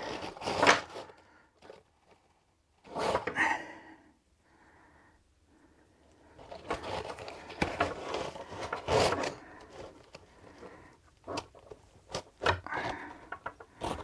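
Handling noise from a fabric backpack and elastic cord: the pack's fabric rustles and scrapes in several bursts, with small clicks in between, as the cord is pulled through its loops.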